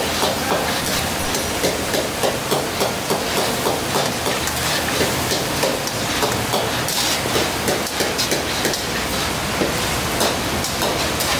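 Mutton sizzling in a steel karahi wok while a metal utensil stirs it, scraping and knocking against the pan in a steady rhythm of about two to three strokes a second.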